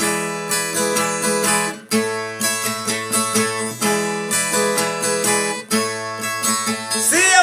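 Viola caipira (Brazilian ten-string guitar) strummed in repeated chord phrases as a song's instrumental introduction, with two brief breaks; a man's singing voice comes in near the end.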